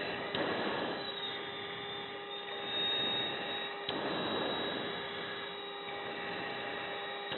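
Steady hum and hiss on an F-16 fighter's cockpit intercom during the jet's final approach to landing, with a few steady tones running through it. Two short rushes of noise come about half a second and four seconds in.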